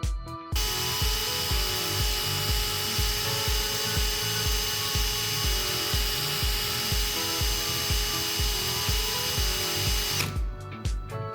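Electric drill running at a steady speed with a constant high whine, starting about half a second in and cutting off near the end. Background music with a steady beat plays under it.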